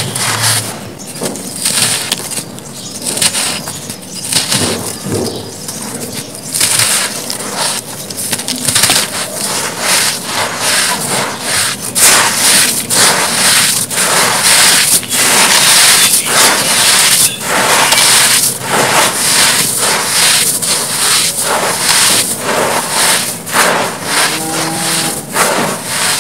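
Hands crumbling and digging through a dry pile of black, grainy, sandy mini blocks, giving a dense, irregular run of crunches and scrapes as the lumps break and the grains pour and trickle. It gets louder and busier from about halfway through.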